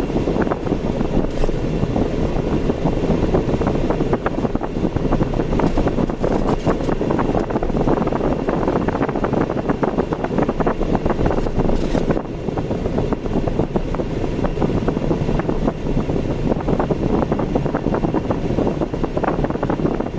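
Steady road noise of a car driving on city streets: tyre and engine rumble with a light rattle, with a brief dip about twelve seconds in.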